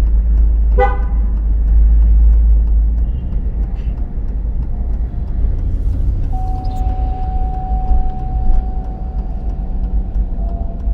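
GMC Yukon Denali on the move: a steady low road and engine rumble, a brief pitched squeak about a second in, and a steady high whine from a little past halfway. The owner is chasing a creaking sound in the vehicle.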